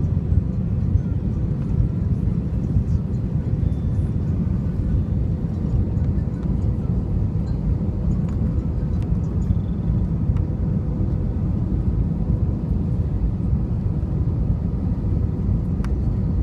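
Steady low rumble of engines and airflow inside the cabin of an Airbus A320 on approach with flaps extended, with a faint steady hum above it.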